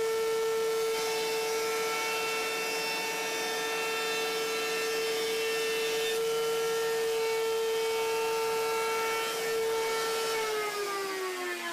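Wood router running at full speed with a steady high whine, its round-over bit cutting wood from about a second in. About ten and a half seconds in it is switched off and its pitch falls as it spins down.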